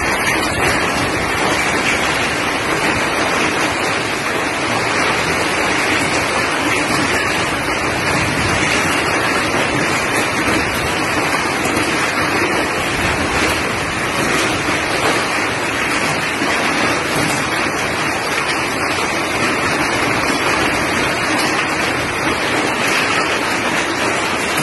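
Hailstorm: heavy rain and hail pouring down onto leaves and ground, a loud steady rush.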